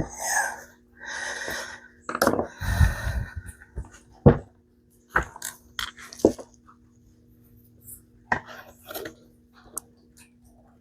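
Scuffing and rubbing of hand work on a chainsaw's fuel line and tank as the line is pushed into place with a pick, then a few separate sharp clicks.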